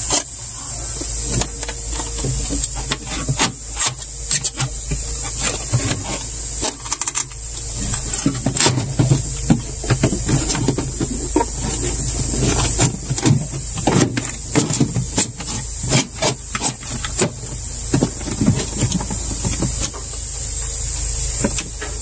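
Irregular plastic clicks, knocks and rubbing as a refrigerator's plastic inner cover panel is handled and fitted back into place, over a steady hiss and low hum.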